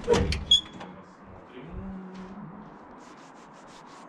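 Steel door being opened: the lever handle and latch clack sharply a few times, then a low drawn-out creak as the door swings about a second and a half in.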